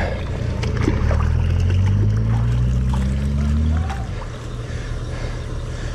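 Four-wheel-drive vehicle's engine revving, rising steadily in pitch and then dropping back about four seconds in, over the trickle of a shallow rocky stream.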